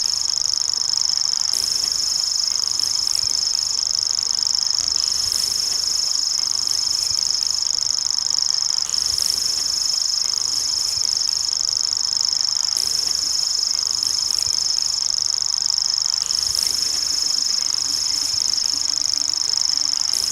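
Common grasshopper warbler (Feldschwirl) reeling: one continuous high, insect-like trill held without a break.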